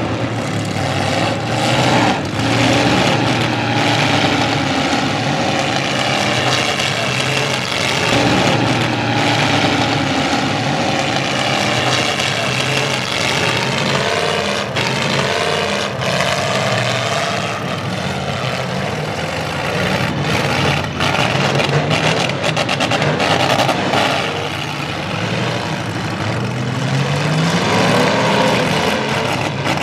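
Several full-size demolition derby cars' engines running hard and revving up and down together, with sharp crashes now and then as cars collide. A rising rev comes near the end.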